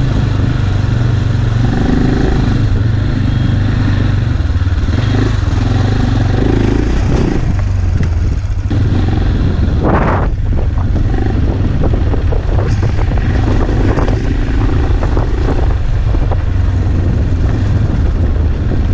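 AJP PR7 adventure motorcycle's single-cylinder engine running at a steady, low pitch while the bike is ridden along a rough gravel track, heard from a camera mounted on the bike. A short rush of noise comes about ten seconds in.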